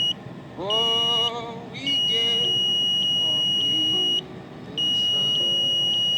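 A high-pitched electronic beeper sounding in long steady stretches of one to two and a half seconds, cutting off and on again several times. In the short gaps come brief pitched sounds that bend upward, like a voice.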